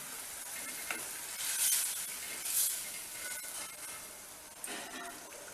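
Tamarind gravy (kuzhambu) bubbling and sizzling in a steel kadai on the stove, a steady hiss with a few louder swells.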